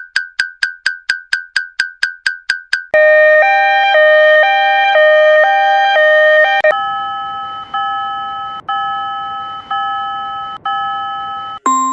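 Japanese railroad crossing warning bells, electronic and cartoon-style, changing three times: a single-tone ding about five times a second, then a quicker two-tone alternating chime from about three seconds in, then a slower two-tone chime at a different pitch from about halfway.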